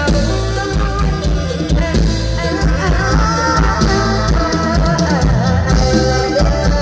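Loud live Thai mor lam band music through the stage sound system: a steady drum-kit and bass beat under a wavering melody line.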